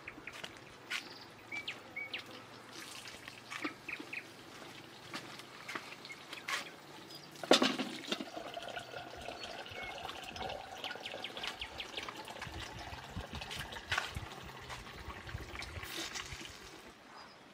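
Water running and trickling from an outdoor garden tap, with a single loud clunk about seven and a half seconds in and a few short bird chirps.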